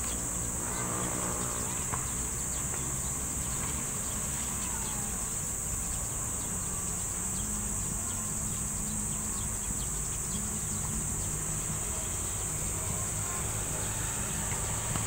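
A steady, high-pitched insect drone, unbroken throughout, over a low, even rumble of road traffic.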